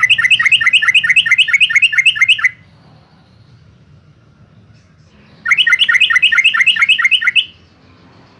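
Yellow-vented bulbul (trucukan) singing: two loud runs of rapid, repeated chattering notes, about five a second, each lasting about two seconds, with a pause of about three seconds between them.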